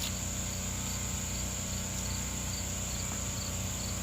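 Insects calling outdoors: a steady high-pitched trill with a quieter chirp repeating about twice a second.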